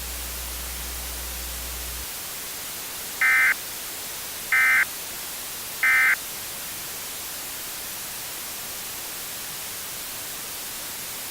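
Emergency Alert System end-of-message code: three short, identical bursts of SAME digital data tones, about 1.3 seconds apart, marking the end of the blizzard warning. They sound over a steady hiss, and a low hum underneath cuts off about two seconds in.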